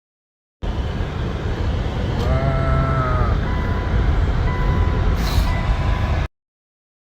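Strong blizzard wind blowing on the microphone, a loud steady rumbling noise. About two seconds in comes a short pitched tone, and after it a thin high tone that comes and goes.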